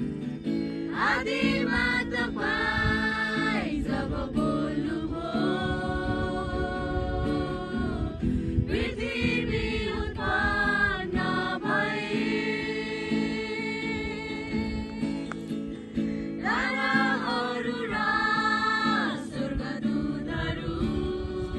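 A group of mixed voices singing a song together to a strummed acoustic guitar, in sung phrases with long held notes.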